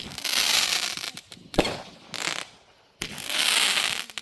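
Fireworks going off: three sharp bangs, two of them trailed by about a second of crackling hiss.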